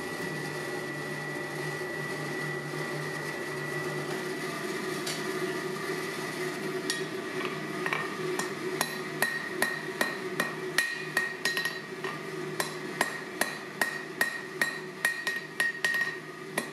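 Ball-peen hammer striking steel on an anvil in quick, even blows, about two to three a second, starting about seven seconds in. A steady hum runs underneath.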